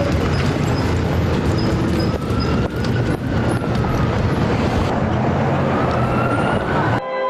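Loud city noise: a deep vehicle rumble with slow rising and falling tones drifting over it. Near the end it cuts off sharply and soft music takes over.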